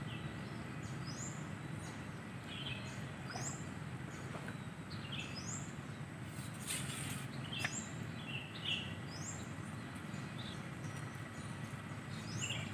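Small birds calling, short high notes that drop in pitch, repeating about once a second over a steady low outdoor background; a brief hiss of noise about halfway through.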